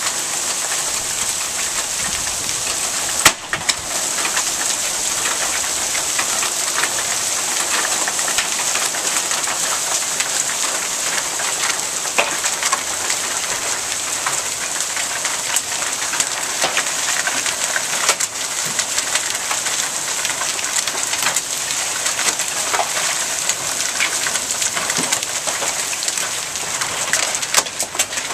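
Hail and rain falling on a lawn and pavement: a steady, dense patter dotted with many sharp ticks of hailstones striking. A single loud knock about three seconds in.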